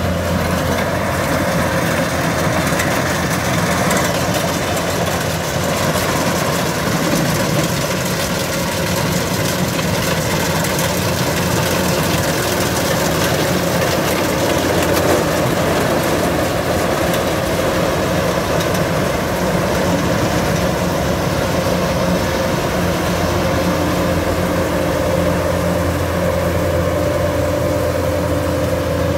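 Kubota DC-105X rice combine harvester running steadily under load while it cuts rice, its diesel engine giving a constant low hum with a steady higher whine from the working machinery.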